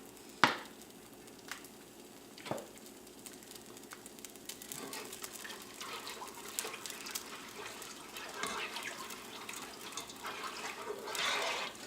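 A sharp click about half a second in and a weaker one a couple of seconds later. Then soft crackling liquid sounds from the saucepan of orange-honey glaze as honey is squeezed in.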